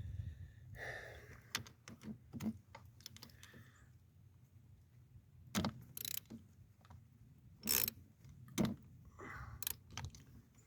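Metal hand tools and sockets clinking and clicking at uneven intervals, with a few sharper metallic knocks, as a broken car battery terminal clamp is taken off.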